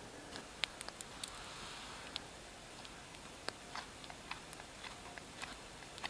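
Campfire crackling: irregular sharp pops and ticks over a faint steady hiss.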